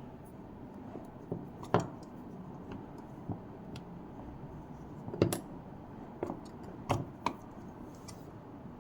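Scattered sharp clicks and light knocks of small hard parts being handled, the loudest about two seconds in and again around five and seven seconds, over a steady low hiss.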